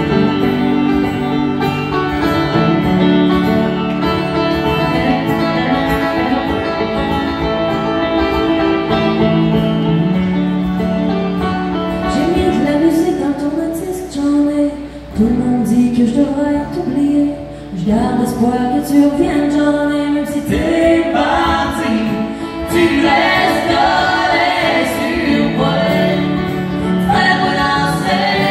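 Live acoustic country music: acoustic guitar and banjo, with long held harmonica notes, then a woman singing from about twelve seconds in.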